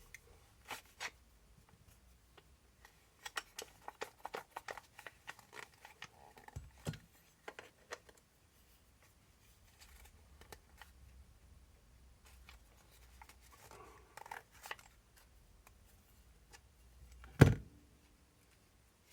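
Small metal RC shock parts and hand tools clicking and tapping as they are handled on a workbench, in scattered runs of quick clicks, with one loud knock near the end.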